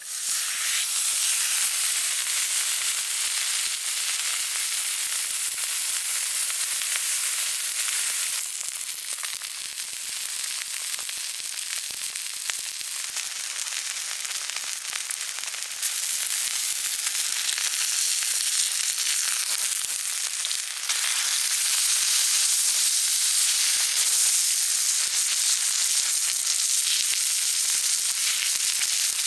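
Sirloin steak sizzling steadily in a hot pan, with small pops and spatters. The sizzle dips a little in level a few times and gets louder again about two thirds of the way in.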